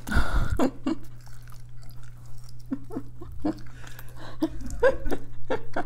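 Close-up eating sounds: borscht taken from a spoon, chewing and many small wet mouth clicks, with a short noisy burst right at the start and a steady low hum underneath.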